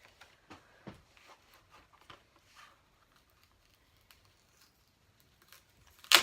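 Knife packaging being worked open by hand: scattered small scrapes and clicks of cardboard and plastic, then one loud sharp snap or rip near the end as part of the package comes free.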